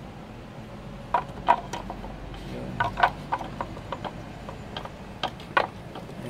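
Glazed ceramic drawers clicking and knocking against a carved wooden frame as they are set back into it by hand, an irregular run of sharp taps.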